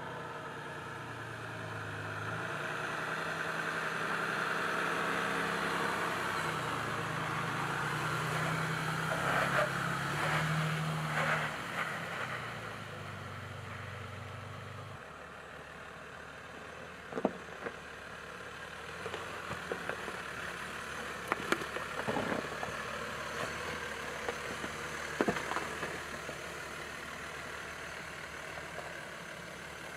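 Land Rover Defender D300's 3.0-litre inline-six turbo diesel running at low revs under load as it crawls over rock, its note rising and falling in the first half. About halfway through the engine sound drops lower and quieter, and several sharp cracks and knocks of the tyres on rock come through.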